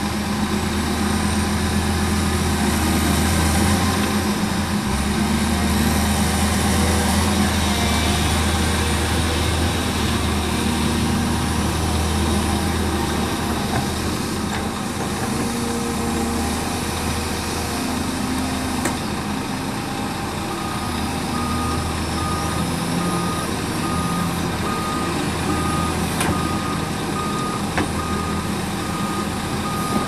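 Heavy diesel engines of construction machinery (an excavator and trucks) running, with a strong low drone that eases about two-thirds of the way in. From then on a truck's reversing alarm beeps at a steady rate.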